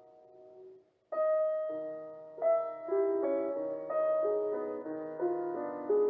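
Gentle background piano music. A phrase dies away to a brief silence about a second in, then the piano comes back with struck notes and chords that ring and fade.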